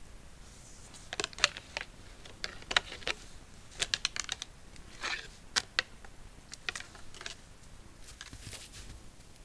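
Irregular clusters of short, sharp clicks and crunches in the snow from a white-tailed buck feeding with its head down; the clicks come in bunches about every second and thin out near the end.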